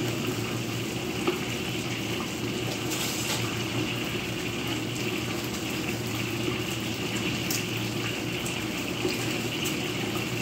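Steady sizzling of flour-coated food frying in hot oil, with a few faint crackles scattered through it.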